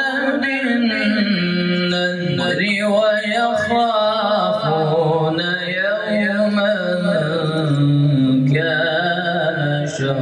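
A man reciting the Quran in the melodic, drawn-out tajweed style, holding and bending long notes through one continuous phrase. The voice comes through a handheld microphone.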